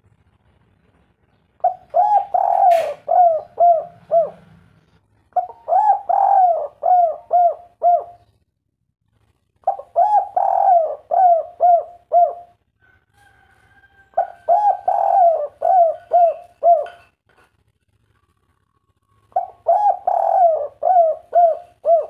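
Spotted dove cooing: five phrases in a row, each a quick run of seven or eight rounded, bouncing coos lasting about three seconds, with short pauses between. This is the song type that Indonesian dove keepers call 'kuk 3'.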